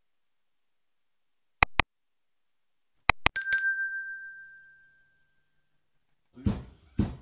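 Subscribe-animation sound effects: two mouse clicks, then a quick run of clicks and a bright bell chime that rings out and fades over about a second and a half. Near the end, dull thuds begin, about two a second.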